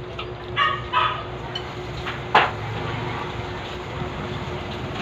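A dog barks twice, about half a second and one second in. A single sharp knock comes near the middle, then a motor vehicle engine runs steadily nearby.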